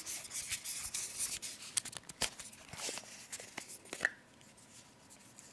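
Lightweight plastic SKKN by Kim exfoliator jar handled in the hands: a run of small clicks and scrapes as the jar and its lid are turned and tapped, with a sharper click about four seconds in. The light, cheap plastic can be heard in the clicks.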